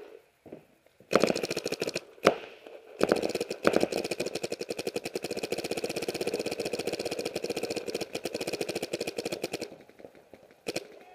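Paintball marker firing: a short burst about a second in, a single shot just after, then a long rapid stream of shots lasting about seven seconds.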